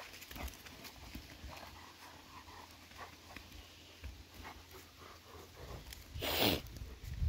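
Two dogs playing with a toy at a pond's edge: panting, small splashes and scuffling, with a loud rushing burst about six seconds in.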